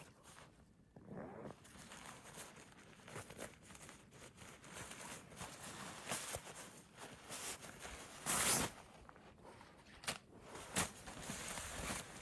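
Nylon tent fabric and its stuff sack rustling and crinkling as the rolled tent is handled and pulled out of the sack, with one louder rasping rip of about half a second around eight seconds in.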